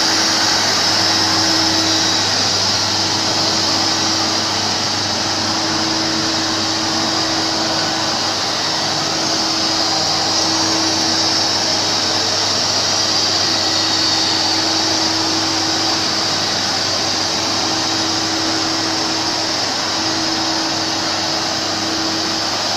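Powerwash SC2A walk-behind electric floor scrubber running while scrubbing: its brush and suction motors give a steady whir with a low hum.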